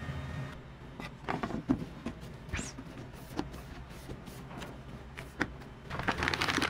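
Scattered knocks and clicks of plastic containers being handled. Near the end comes a burst of crinkling as a thin plastic bag is fitted into a plastic bucket.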